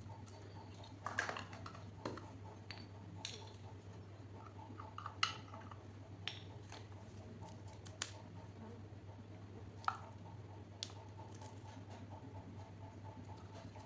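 Scattered light clicks and taps of small plastic miniature toy kitchen pieces being handled and set down, a dozen or so spread irregularly, over a low steady hum.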